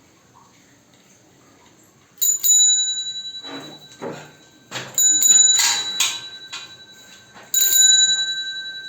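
Bicycle bell rung three times, about every two and a half seconds, each a quick double ding that rings on as it fades. Short noisy sounds come between the rings.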